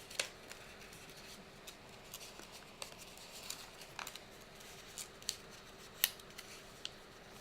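Square origami paper being folded and creased by hand: faint rustling with scattered sharp crackles of the paper, the loudest about six seconds in.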